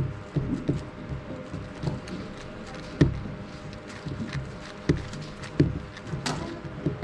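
A 3x3 speed cube turned one-handed with its base on a tabletop mat: an irregular run of clicking layer turns and light knocks of the cube against the mat, with a few sharper knocks, the loudest about three seconds in.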